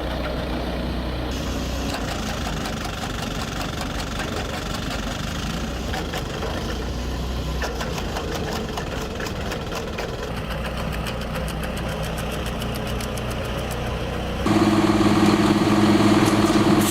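Diesel engine running a flywheel-driven wood chipper, a steady drone with a run of rapid clicks in the middle. About 14.5 seconds in it cuts to a louder machine hum with a strong steady tone.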